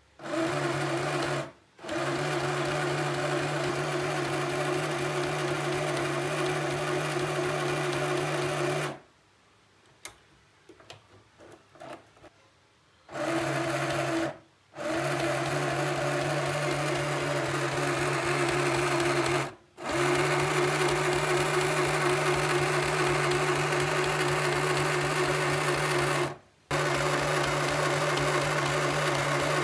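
Small electric domestic sewing machine stitching cloth with a steady hum, in long runs that stop briefly several times. Near the middle it stops for about four seconds, leaving only faint handling clicks.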